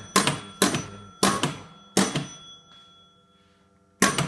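A 1950 Gottlieb Madison Square Gardens electro-mechanical pinball machine's scoring bell, struck about eight times in quick pairs and singles. Each strike is a sharp clack followed by a ringing tone, with a pause of over a second before the last two.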